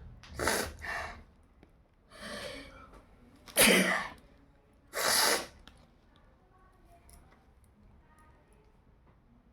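A person sneezing repeatedly: about five sharp bursts in the first six seconds, the loudest about three and a half seconds in.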